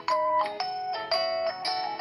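LG K40s smartphone ringtone playing: a melody of short notes, each starting sharply and fading, about two a second.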